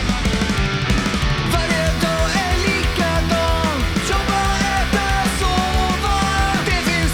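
Rock song with a steady drum beat. About a second and a half in, a lead melody comes in, sliding up and down in pitch.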